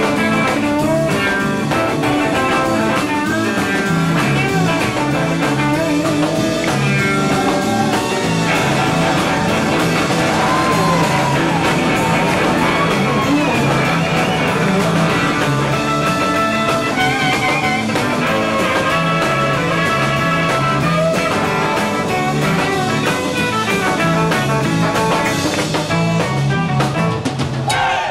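Live instrumental surf rock band played through amplifiers: electric lead guitar over electric bass and a drum kit, with the lead guitar's notes gliding in pitch around the middle.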